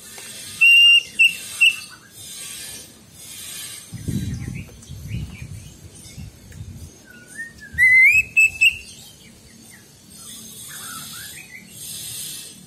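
Greater green leafbird (cucak ijo) singing loud, clear whistled phrases. There are short piping notes about a second in, and a rising, warbling whistle near eight seconds.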